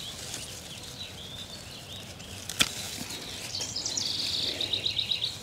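A house wren singing a bubbling song that ends in a rapid, even trill, starting about three and a half seconds in. About two and a half seconds in comes one sharp click of hand pruners snipping a salvia stem.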